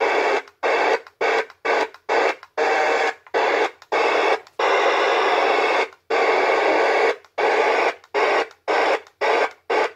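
Static and hiss from a CB radio's speaker with no voice on the channel, cutting in and out in about twenty short bursts. Two longer stretches of a second or more come near the middle.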